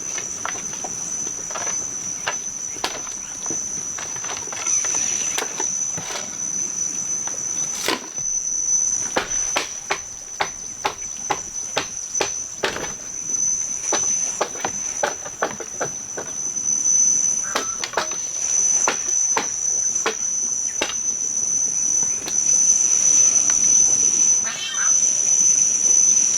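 Steady high-pitched drone of insects, crickets or cicadas, with many irregular sharp taps and knocks over it, thickest around the middle.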